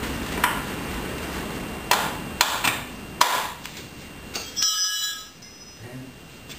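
Sharp metallic clicks and knocks of hand tools and hardware as a bolt is put in on a motorcycle's seat mount, about five over three seconds. They are followed by a brief metallic ring about two-thirds of the way through.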